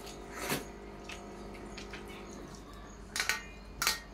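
Eating noises from two people eating rice and fish curry by hand: short wet squishing and smacking sounds, one about half a second in and two close together near the end.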